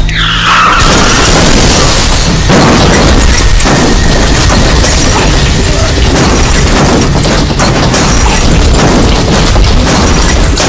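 Film sound effects of an SUV crashing and rolling over. A falling whoosh opens it, followed by a loud, unbroken mix of booming and crashing impacts.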